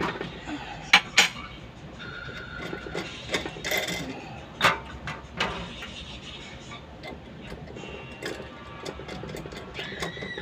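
Scattered sharp metallic clicks and clinks, as of small tools and injector parts being handled on a workbench, with a quicker run of light clicks near the end. Faint background music runs beneath.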